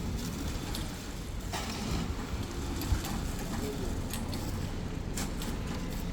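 Construction-site background noise: a steady low rumble with a few scattered sharp knocks.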